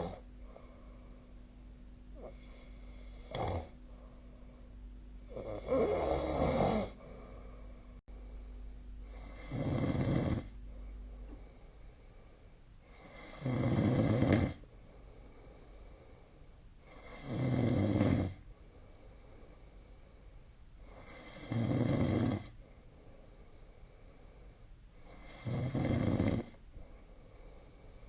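A sleeping person snoring. A few uneven snores come first, then steady snores about every four seconds, each lasting about a second. A faint steady hum in the background stops partway through.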